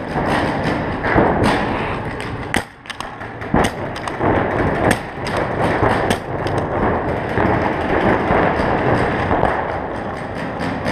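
Paintball markers firing irregular shots during a game, with paintballs thudding against inflatable bunkers, over a continuous din from the arena.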